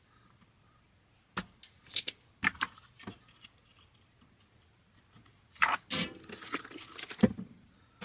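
Pointed metal tweezers and small tools clicking and tapping on a circuit board while transistors are desoldered and wiggled free: a few sharp clicks a second or so in, then a denser run of clicks and scraping near the end.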